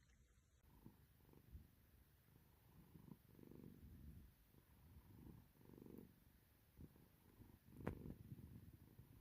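Domestic cat purring faintly, the rumble swelling and fading with each breath; one brief knock near the end.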